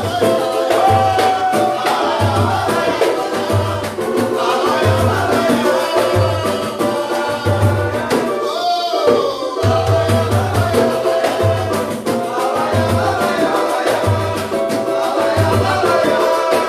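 Samba group playing live: voices singing over a steady low drum beat and light percussion, with a brief break in the bass drum about halfway through.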